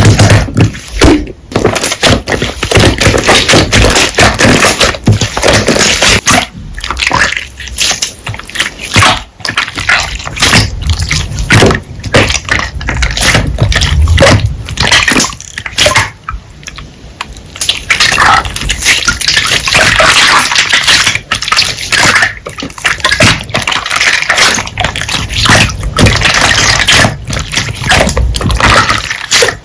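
Hands squishing, pressing and stretching slime: a dense, continuous run of wet, sticky clicks and pops, easing briefly just past the middle.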